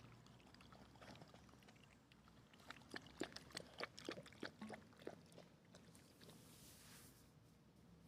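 A puppy lapping water, a quick series of soft wet laps about three or four a second, in the middle of an otherwise faint stretch.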